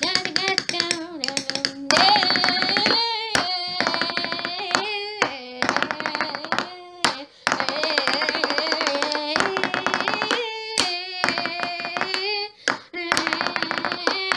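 A homemade song: a voice sings a wavering melody over rapid hand percussion, with many quick taps or claps running through it.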